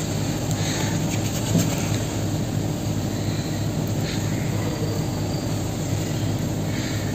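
A steady low hum runs throughout, with a few faint rustles about a second, four seconds and seven seconds in as hands handle clay beside a foil wrapper.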